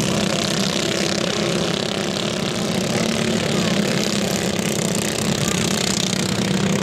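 Several racing cage karts' small engines running together at speed, making one steady, unbroken drone.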